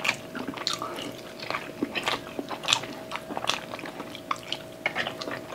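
Close-miked eating: chewing and biting meat off the bone, with irregular wet smacks and clicks several times a second.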